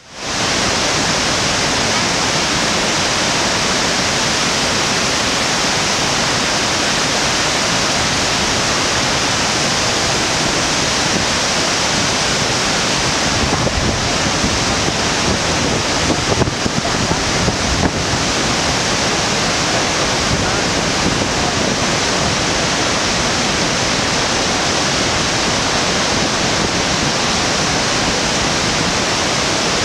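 Iguazu Falls: the steady, loud rush of a huge volume of water plunging into a mist-filled gorge, an even wash of noise with no breaks.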